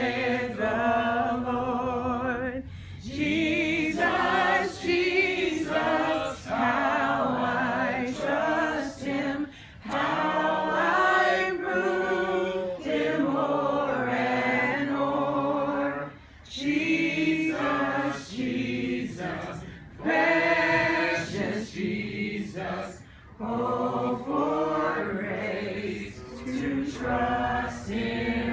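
A small group of voices singing a worship song together unaccompanied, in phrases of a few seconds with short breaks between them.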